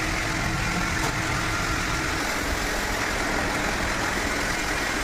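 CNC lathe running: a steady mechanical noise.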